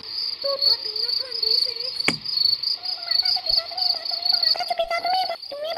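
Crickets chirping steadily in a rapid, high pulsing trill, as night-time ambience. A faint wavering lower tone runs beneath, and there is one sharp click about two seconds in.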